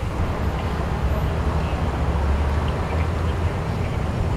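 Steady low rumble of idling vehicle engines, a little louder in the middle.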